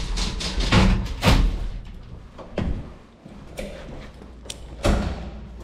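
Old passenger elevator's manual gate and door being slid open, with a series of metal clanks and knocks.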